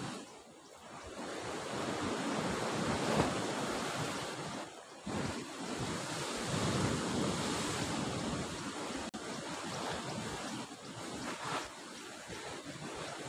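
Sea surf breaking on the shore, swelling and easing in waves, with wind gusting on the microphone.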